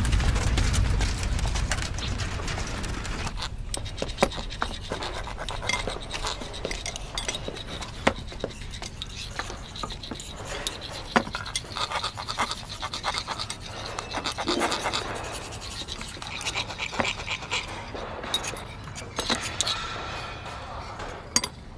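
Scattered clicks, taps and scraping from small metal parts and hand tools being handled on a workbench. A low rumble fades out over the first few seconds.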